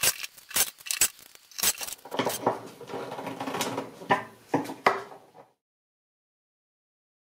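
Steel Kreg pocket-hole screws clinking and rattling in a plastic tub as a hand rummages through them: first a run of sharp separate clicks, then a denser jumble of clinks. The sound cuts off suddenly about five and a half seconds in.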